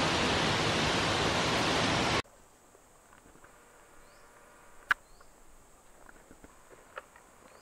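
A loud, steady rushing noise cuts off abruptly about two seconds in. What follows is quiet forest ambience: a steady high insect drone, faint short chirps, a sharp crack about five seconds in and a smaller click near the end.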